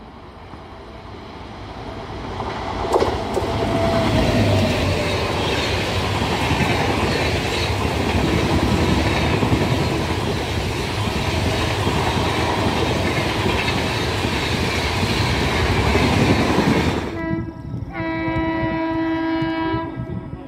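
Jan Shatabdi Express passenger train approaching and passing at speed on the adjacent track. It grows from a distant rush into a steady loud rumble with wheel clatter for over ten seconds. Near the end the sound cuts abruptly to a train horn sounding a long, multi-tone blast of about three seconds.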